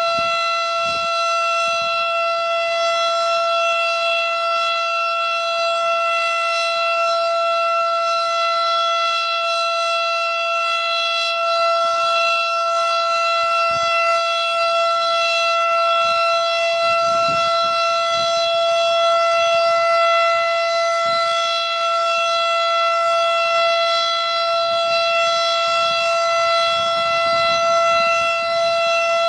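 Federal Signal STH-10 outdoor warning siren sounding a steady alert tone at full pitch during a siren test, one held note with no rise or fall.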